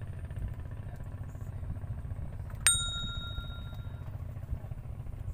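A small metal bell struck once about halfway through, ringing out at several clear pitches for about a second and a half over a steady low rumble.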